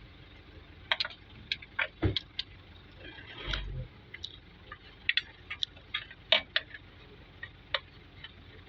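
Hand tools and metal engine parts clicking and tapping at irregular intervals, with a duller knock about three and a half seconds in.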